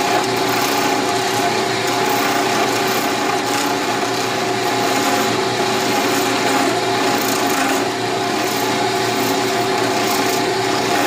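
Wood lathe running with a steady hum while a parting tool takes small cuts from a spinning pen blank of acrylic and maple burl, a continuous scraping hiss. The turner puts a noise in it down to something on the lathe not being tight.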